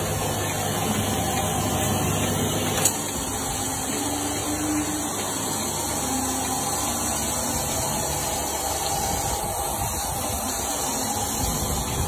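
Milking machine equipment in a camel milking parlour running with a steady mechanical hum and hiss, with a single sharp click nearly three seconds in.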